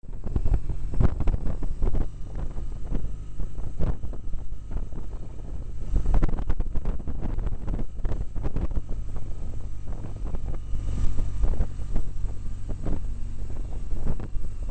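Motorcycle ride at road speed: wind buffeting the microphone in irregular gusts over the steady low drone of a BMW R1200GS Adventure's boxer-twin engine.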